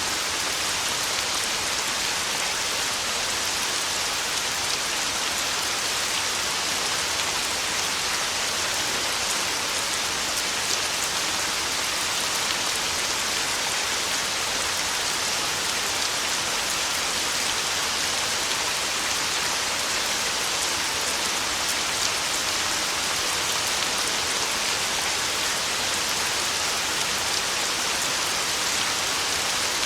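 Heavy rain falling steadily: an even, unbroken hiss of a downpour with fine patter of drops.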